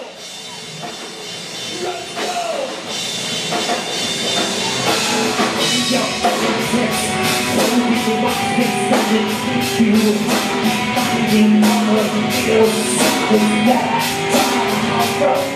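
Rock band playing live with electric bass, guitar and a drum kit. It starts thinner and builds, and from about five seconds in a fast, steady drum and cymbal beat drives under the held bass and guitar notes.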